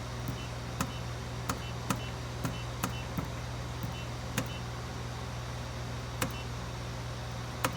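Continuous inkjet printer running with a steady low hum. Over it come irregular sharp clicks and faint short high beeps, a few each second.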